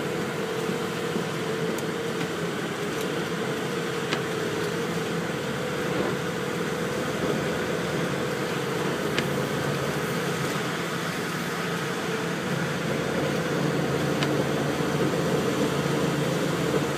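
Semi-truck's diesel engine running at low revs, heard from inside the cab while the truck backs slowly: a steady hum with a few faint clicks.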